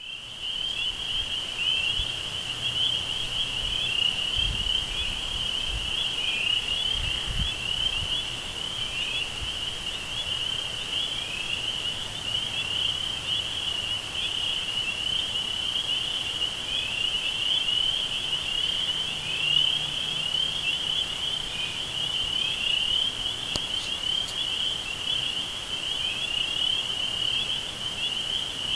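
Dense insect chorus: many high chirps overlapping without a break at one pitch, over a faint low hum with a few soft low thumps about four to seven seconds in.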